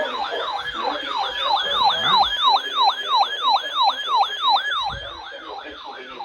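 Siren sounding a fast yelp: a falling sweep repeated about three times a second. It drops noticeably in level about five seconds in but keeps going.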